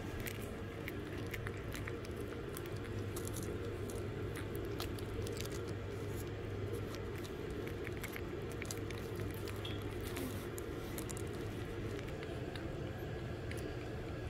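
Shih Tzu puppies mouthing and suckling close to the microphone: many small irregular wet clicks and smacks over a steady low hum.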